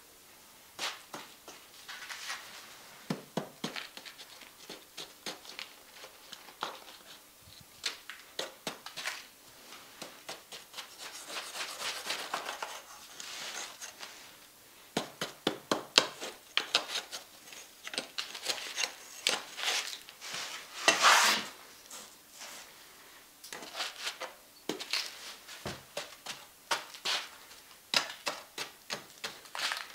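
Dry molding sand being scraped and brushed away from a freshly cast bronze pan by hand and with a small tool: irregular gritty scratches and light taps, with a few longer scrapes about halfway and two-thirds of the way through.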